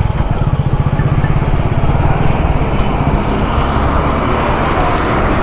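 A motorcycle engine running close by with a fast, even beat, most distinct in the first two seconds, over street traffic.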